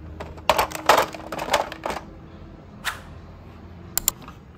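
Plastic toy trucks clicking and clattering as they are handled and knocked against each other: a quick run of sharp clicks in the first couple of seconds, then a single knock, and a quick pair near the end.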